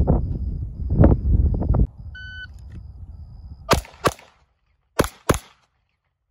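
Low rumbling noise, then a short electronic beep about two seconds in. Four pistol shots follow near the end, fired as two quick pairs about a second apart.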